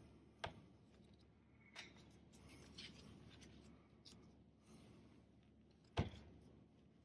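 Quiet handling sounds of a metal CV boot band clamp being fitted around the rubber boot on a drive axle: a few sharp clicks and small ticks, the loudest knock about six seconds in.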